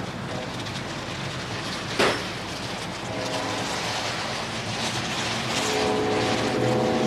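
Audi RS7's twin-turbo V8 running at low revs as the car rolls slowly, a steady drone that grows louder near the end. One sharp click about two seconds in.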